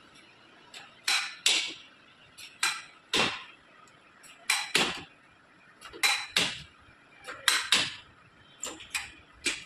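Sharp metal clicks and clanks from the steel backrest adjustment of a multi-purpose weight bench, as the sliding support bar and its locking pin are moved through the adjustment holes to raise the backrest. The clicks come mostly in pairs, about every second and a half.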